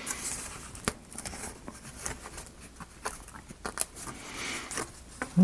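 Laser-cut plywood model parts being popped out of their sheet and handled: irregular small clicks and snaps with light wooden rustling and scraping.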